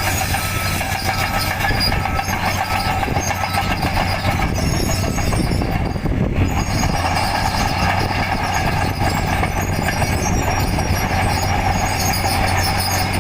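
Mini crawler bulldozer running steadily: a diesel engine hum under a constant metallic clatter, with faint high squeals from its steel tracks.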